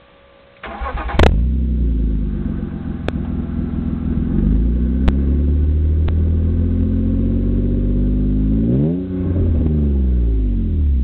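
BMW E36 328i's M52 2.8-litre straight-six exhaust, through a Supersport stainless-steel rear silencer: the starter cranks briefly, the engine catches about a second in, then it idles steadily before two quick throttle blips near the end.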